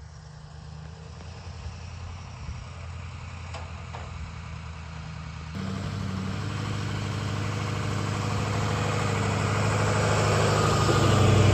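Truck engine running with a steady low hum. The level jumps up about five and a half seconds in and grows steadily louder toward the end.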